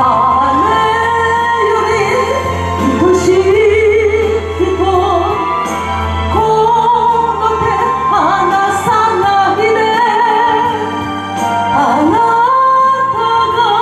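A woman singing a Japanese song into a microphone over instrumental accompaniment, with vibrato on held notes.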